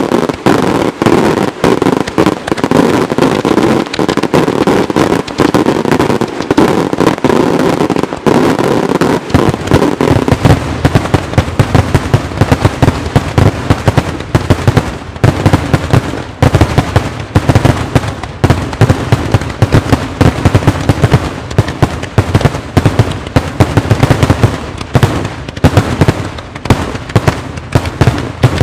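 Daytime Maltese fireworks battery: a dense, unbroken barrage of aerial salutes bursting overhead, several sharp bangs a second overlapping one another. From about nine seconds in, the reports come heavier and deeper.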